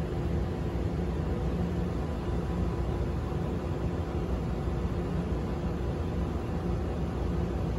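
Steady low rumble of background noise with a faint, even machine-like hum running through it.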